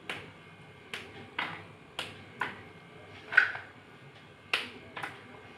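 Slate pencils being snapped by hand into short pieces: about eight short, crisp snaps at uneven intervals. The loudest comes about three and a half seconds in.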